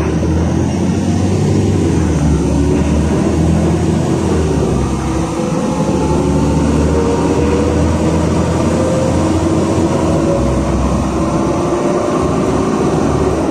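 Inside a LiAZ 5292.67 city bus under way: its YaMZ-53624 natural-gas engine and driveline running with steady road and tyre noise. A faint whine rises slowly in pitch from about the middle on.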